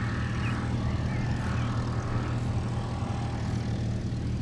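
ICP Savannah S ultralight's propeller engine droning steadily as the plane climbs away after take-off.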